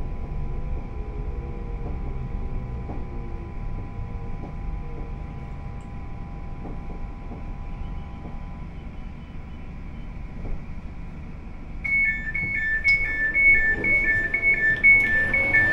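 Elizabeth line train carriage with a low running rumble and a faint steady whine that dies away about two-thirds of the way through as the train slows. About twelve seconds in, a rapid, repeating two-tone electronic beeping starts, typical of the door-release warning as the train stands at a station.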